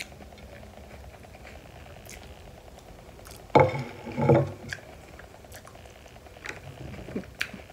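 A person eating a tostada, with scattered small crunches and clicks of chewing over a steady low room hum. A brief vocal sound, voiced with her mouth full, comes about three and a half seconds in and is the loudest part.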